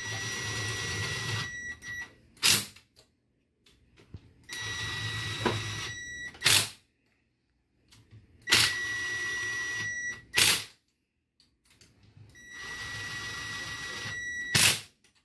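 Ryobi cordless drill spinning a socket to snug down cylinder-head bolts: four short runs of a steady whine, each about two seconds long and each ending in a sharp click as the bolt is run down.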